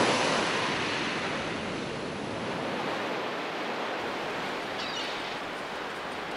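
Ocean surf: waves breaking and washing in as a steady rush of noise, swelling with a wave crash at the start.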